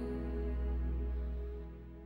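Slow new-age song, sustained held notes over a low drone with no singing at this point, fading down toward the end.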